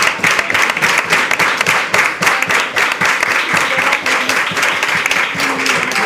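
Audience applauding: dense, steady clapping from many hands, easing slightly near the end.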